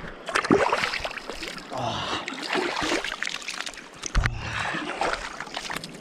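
River water splashing and sloshing in irregular bursts as a person moves about while sitting in a shallow, cold river.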